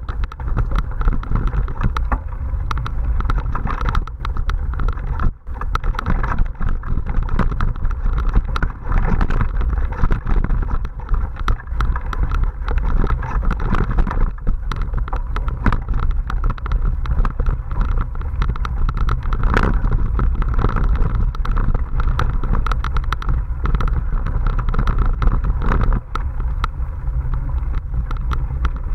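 Ride noise picked up by a bike-mounted action camera on a mountain bike rolling over a dirt forest singletrack: a continuous heavy rumble of wind on the microphone and tyres on dirt, with frequent sharp rattles and knocks as the bike and camera mount jolt over bumps.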